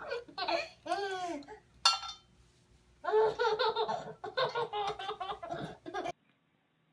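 Young child laughing in short high-pitched bursts, then a longer run of laughter that cuts off suddenly about six seconds in.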